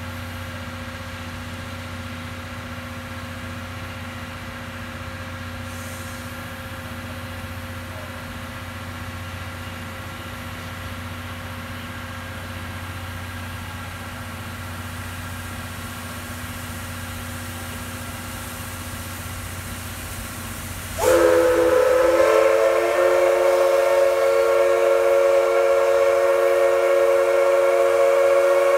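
A JNR Class D51 steam locomotive's steam whistle sounds one long steady blast of several tones together, starting suddenly about twenty seconds in and lasting about eight seconds. Before it there is a steady low hum.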